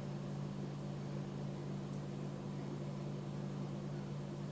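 Steady low hum under a faint hiss: the background room noise, with one faint high tick about two seconds in.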